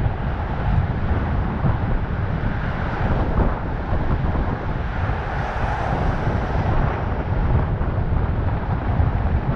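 Wind buffeting the microphone over the steady low rumble of a vehicle in motion.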